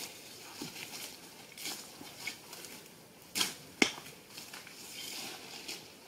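Faint rustling of footsteps moving away through dry leaves and grass, with a short scrape about three and a half seconds in and a single sharp snap or click just before four seconds, the loudest sound.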